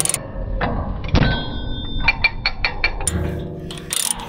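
Ratchet chain binder being cranked to draw a chain tight against a padlock, in order to break the lock: a run of sharp metallic pawl clicks with a faint ringing note, growing into denser ratcheting and chain clatter near the end.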